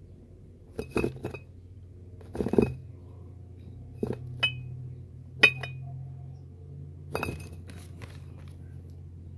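Empty glass beer and wine bottles clinking against one another, a handful of separate knocks each with a short ring, spread over several seconds. A steady low hum runs underneath.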